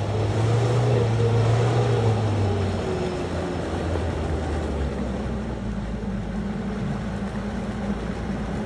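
Dump truck's diesel engine running steadily under load as the truck climbs a muddy dirt hill. The engine is loudest for the first few seconds, and its note shifts lower about five seconds in.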